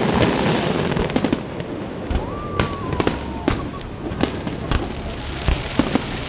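Fireworks display: a dense crackle of bursts for the first second and a half, then a string of separate sharp bangs, roughly one every half second to a second.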